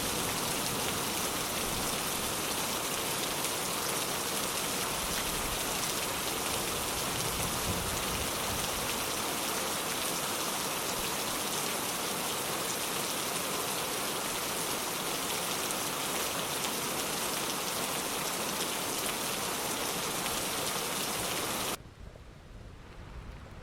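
Heavy rain falling steadily, a dense even hiss. Near the end it cuts off suddenly, leaving only a fainter, duller sound.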